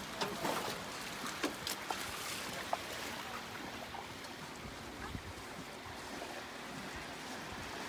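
Steady background noise with a few light clicks and rustles in the first three seconds, as fingers fold a fresh leaf around raw jellyfish.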